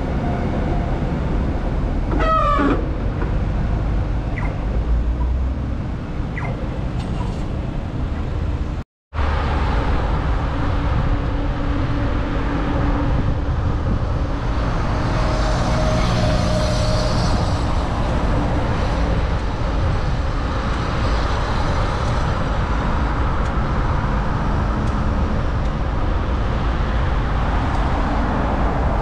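Steady wind and rolling noise on a bicycle-mounted action camera while riding alongside city traffic, with a brief pitched tooting sound a couple of seconds in. The sound cuts out completely for a moment about 9 seconds in.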